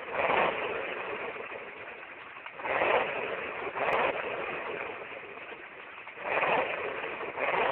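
Novelty 'Start Your Engine' alarm clock sounding its alarm: a recorded supercharged V8 engine running and being revved in pairs of blips about a second apart, each pair a few seconds after the last.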